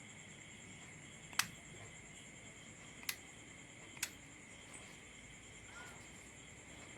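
Three sharp clicks, the first the loudest, about a second and a half apart, over a faint steady high-pitched whine.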